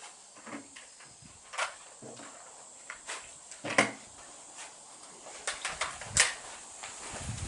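A few sharp cracks roughly two seconds apart, the loudest near the middle and about six seconds in, among fainter clicks and knocks.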